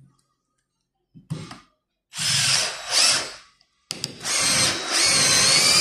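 Cordless drill/driver driving a 5 x 70 mm screw into melamine-faced particleboard. It runs in a few short trigger bursts, then in one longer run as the screw goes in, with the motor whine rising in pitch.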